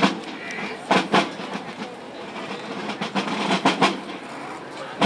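A series of sharp knocks at irregular intervals, some in quick pairs, over a steady rushing background.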